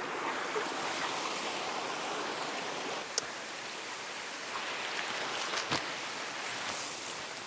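Creek water flowing steadily, with a few faint clicks about three seconds in and near six seconds.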